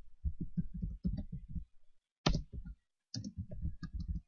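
Typing on a computer keyboard: runs of quick keystrokes with a short pause about two seconds in.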